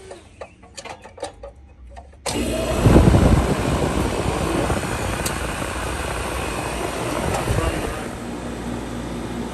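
Air conditioner condensing unit starting up: a few faint clicks, then about two seconds in the compressor and fan come on suddenly, surge briefly and settle into a steady run.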